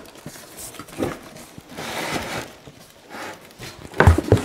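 Cardboard box and plastic wrap rustling and scraping as hands work around a boxed bench machine, with scattered small knocks and two or three heavy thumps about four seconds in as the machine knocks against the box.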